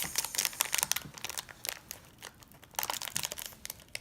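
Toy packaging wrapper crinkling in the hands as a small item is unwrapped, with irregular crackles that ease off briefly about halfway through.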